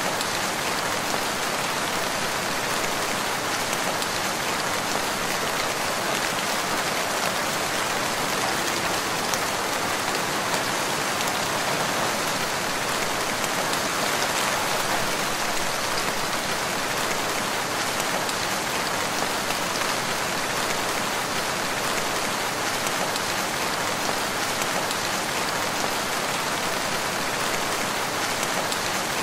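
Steady rain falling, an even hiss of many drops with no let-up or thunder.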